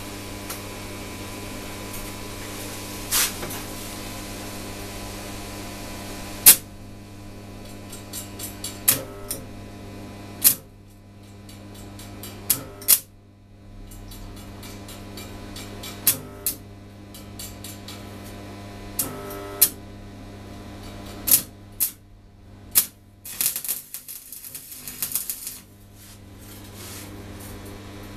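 Steel rod frame of a wire wine rack clinking and knocking against a steel plate and workbench as it is handled and positioned, a dozen or so separate sharp metal clicks with a rapid flurry of small clicks near the end, over a steady low electrical hum.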